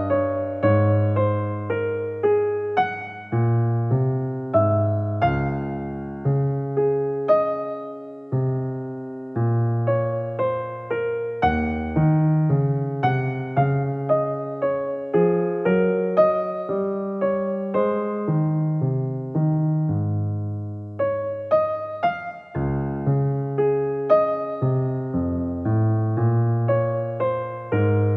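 Background piano music: a calm melody of struck notes that each fade away, over low bass notes.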